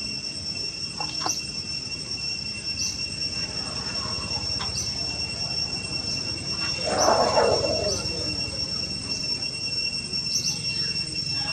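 Steady high-pitched insect drone, with short chirps repeating about once a second and a brief louder noisy sound about seven seconds in.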